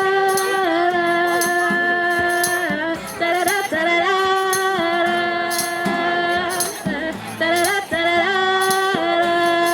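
Live band music: long, held wordless sung notes over a steady tambourine beat.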